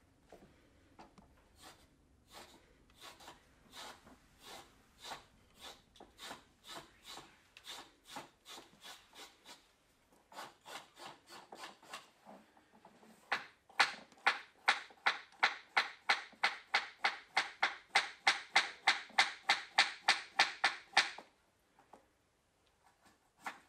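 Rhythmic rubbing strokes against a hard surface. They are faint and about two a second at first, then grow louder and quicker, about three a second, for the last part. They stop suddenly shortly before the end.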